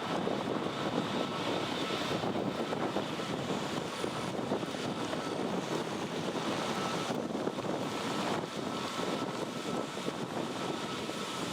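Jet airliner engines during takeoff: a steady rush of noise with a faint high whine, easing a little near the end.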